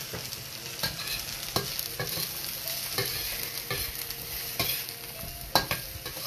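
Diced eggplant, king trumpet mushroom and zucchini sizzling in oil in a wok, with a metal utensil scraping and knocking against the pan about once or twice a second as the vegetables are stirred; the loudest knock comes near the end.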